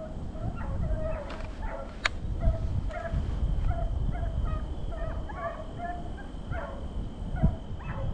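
A pack of deer hounds baying in short, overlapping barks, one or two a second, as they run a deer's trail. A single sharp click comes about two seconds in.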